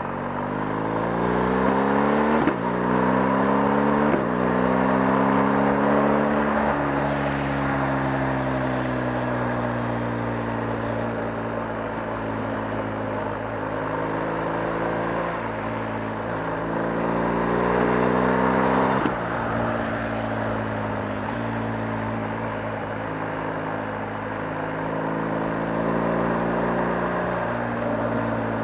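BMW R 1250 GS's 1254 cc boxer twin under way: the engine revs up and is shifted up twice about two and four seconds in, each shift bringing a drop in pitch. It then holds a fairly steady cruise, with one more upshift about two-thirds of the way through.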